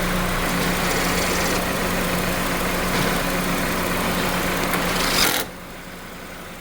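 A steady mechanical running noise with a constant low hum, like an engine or motor idling. A little over five seconds in, the louder noise cuts off suddenly and a quieter hum remains.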